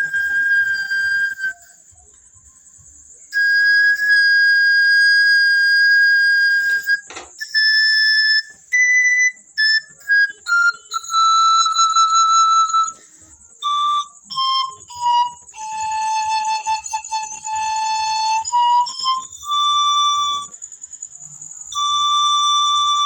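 Pan flute played in its high register, on tubes whose walls have been thickened for a cleaner high tone. A long held note sounds twice with a short pause between, then single notes step mostly downward, with a longer low note near the end and another held note in the last seconds.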